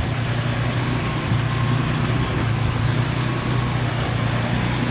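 An engine running steadily, a low even hum with a hiss over it, typical of snow-clearing machinery or a vehicle idling.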